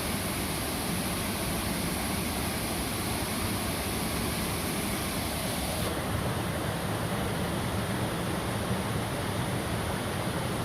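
Waterfall: a steady rush of falling water, with the highest hiss thinning about halfway through.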